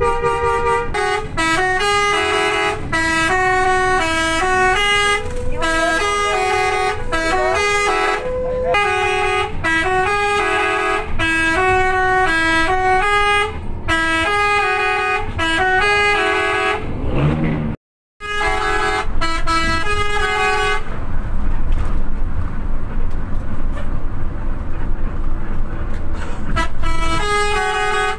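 A bus telolet horn, a multi-trumpet air horn, plays quick jingles of stepped notes again and again over the bus's engine and road noise. About two-thirds of the way through there is a brief dropout and a short last run of notes. Several seconds of engine and road noise alone follow, then the horn tunes start again near the end.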